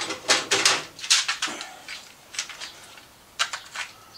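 Handling noise: a quick run of sharp clicks and knocks through the first second and a half, then a few scattered taps, with a pair of clicks about three and a half seconds in.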